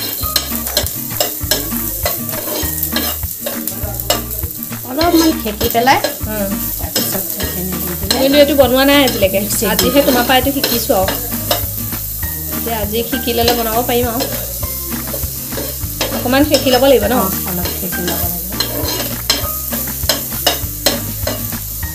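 Onion, garlic and chillies sizzling in hot oil on a tawa while a steel spoon stirs them, scraping and clicking against the pan. A wavering pitched sound comes in twice, about eight and sixteen seconds in.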